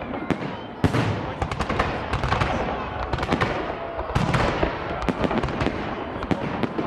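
Fireworks salute: rapid crackling and popping throughout, with heavy booms about a second in and again about four seconds in.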